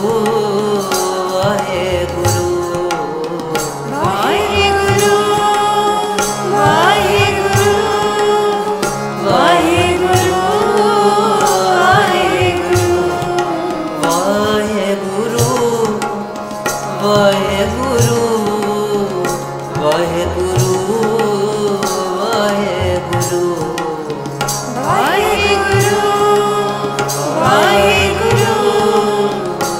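Sikh kirtan: male and female voices singing devotional phrases with sweeping melodic glides, over a steady harmonium and a tabla beat.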